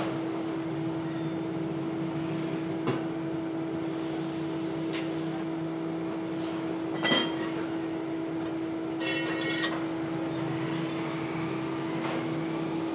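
A steady mechanical hum with a few separate metal clanks as a steel strip is worked in a bench vise. The loudest clank, about seven seconds in, rings on briefly, and a short metallic rattle follows about two seconds later.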